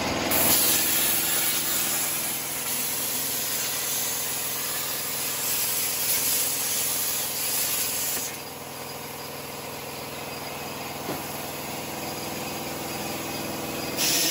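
Plasma cutter cutting a circle out of steel plate: a continuous harsh hiss of the arc and air jet over a steady hum. The hiss drops somewhat about halfway through, and a brief louder burst of hiss comes near the end.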